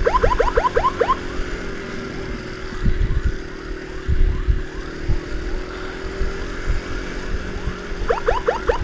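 Electronic escort siren giving quick rising chirps, about five a second, for the first second and again near the end. In between, a steady engine hum with wind buffeting on the microphone.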